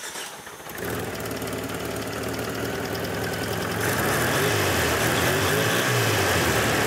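Carbureted four-cylinder engine on stock valve timing, flooded with fuel, catches about a second in and runs with its speed wavering, then gets louder and steadier about four seconds in.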